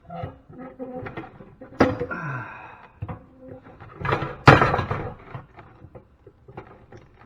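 Metal clanking as scrap equipment is taken apart: a sharp metal-on-metal hit about two seconds in that rings briefly, a louder hit about halfway through, and smaller knocks and rattles between them.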